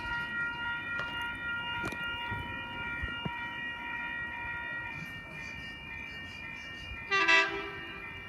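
Oscar (H-set) electric train coming into the platform with a steady high whine of several tones, then a short horn blast about seven seconds in.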